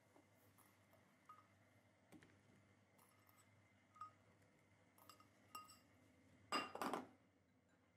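Faint, scattered clinks and taps as halved mushrooms are set by hand into a cast-iron skillet from a stainless steel bowl, some with a short metallic ring. A louder clatter of several knocks comes near the end.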